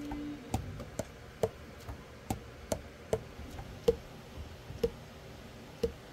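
Alto saxophone keys pressed and released in turn, the pads closing on the tone holes with a sharp click about two or three times a second, each with a short low ring. This is a leak test of a vintage Nova Sax AX-502 after setup, the pads closing with a tight seal.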